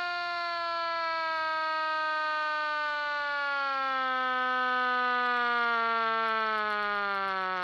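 Vintage WWII-era air raid siren winding down, one long wail whose pitch falls slowly and steadily.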